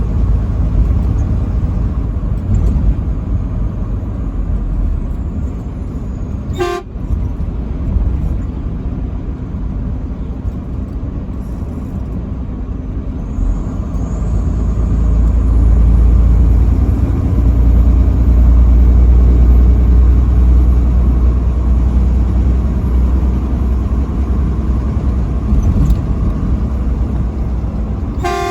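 Steady low rumble of a vehicle driving on the interstate, swelling louder from about 15 to 22 seconds in. Two very short horn toots cut through, one about seven seconds in and one at the very end.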